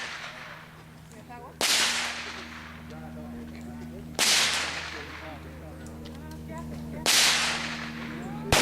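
Four gunshots about two and a half to three seconds apart, each a sharp crack with a fading echo. Birds chirp faintly between the shots.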